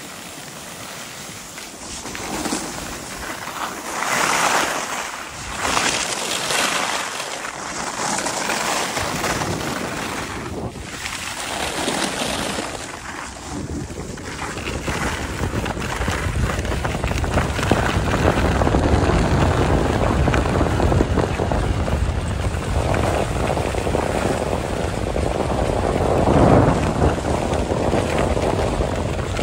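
Skis scraping and swishing on snow through a run of turns. In the second half they are joined by a steady rush of wind on the microphone that grows louder as speed builds.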